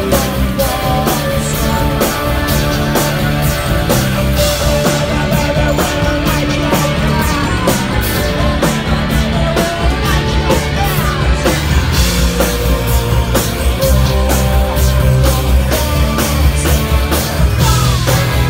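Rock band playing a song with guitars, bass and drums to a steady beat.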